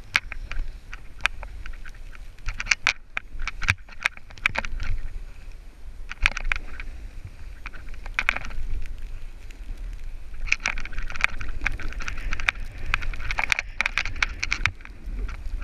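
Snow crunching and hissing under a skier or snowboarder descending a powder run, coming in crackling bursts several times, over a steady low rumble of wind on the microphone.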